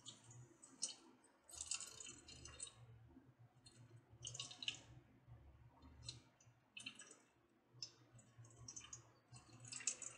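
Faint, irregular wet squishing and crackling of ground snake gourd pulp pressed by hand against a stainless-steel mesh strainer, squeezing its water out into the bowl below.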